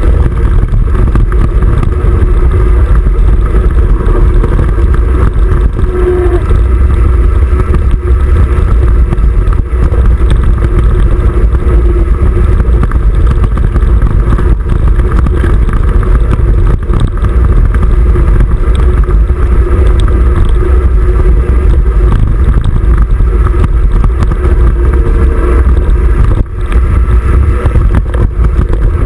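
Riding noise picked up by a GoPro on a Jamis Dakota 29er mountain bike rolling along a dirt trail: a loud, steady low rumble of wind over the camera and tyres on packed dirt, with a brief drop about three-quarters of the way through.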